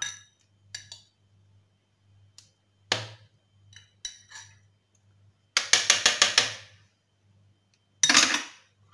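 A teaspoon clinking and knocking against a blender jar as spoonfuls of apricot jam go in. There is a single knock about a third of the way in, then a quick run of about seven clinks a little past halfway, and another short clatter near the end.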